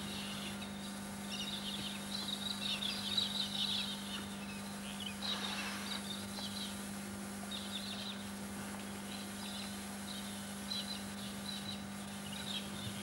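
Wild birds chirping and calling in short scattered bursts, over a steady low hum.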